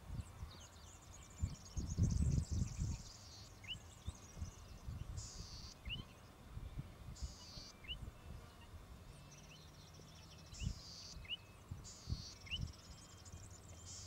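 Golden-headed cisticola singing: a short buzzy wheeze followed by a sharp, rising 'lik' note, repeated about five times every second or two. A high, rapid chatter sounds in the first few seconds, and low wind rumble on the microphone is loudest about two seconds in.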